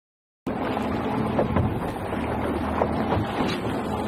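A fishing boat's outboard engine running steadily under heavy wind noise on the microphone, with the sea washing around the hull. It cuts in abruptly about half a second in.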